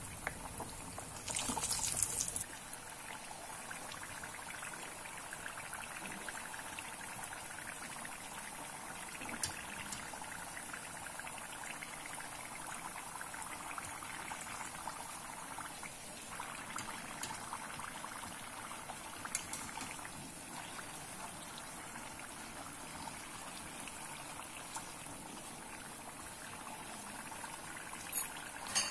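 Moong dal kachoris deep-frying in hot oil in a steel pot: steady sizzling and bubbling, with a louder burst of sizzle about two seconds in and a few faint clicks.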